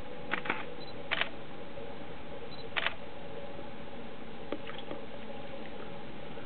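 Steady hiss with a faint low hum, broken by a few short sharp clicks: two close together near the start, one just over a second in and one near three seconds, then two fainter ticks later.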